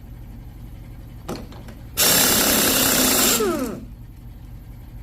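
A power tool's motor triggered in one loud burst of about a second and a half, then winding down with a falling whine, after a short blip a moment before. A steady low hum runs underneath.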